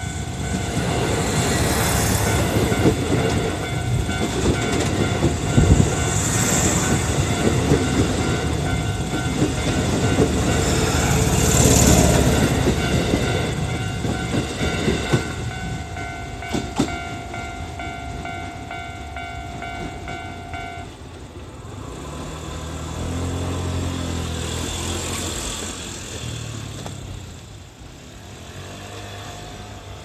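Kintetsu 1233-series and 8400-series electric train passing close by, with a few sharp wheel knocks, while a level-crossing alarm rings steadily. The alarm cuts off about two-thirds of the way through, and the train noise fades to a low hum as it pulls away.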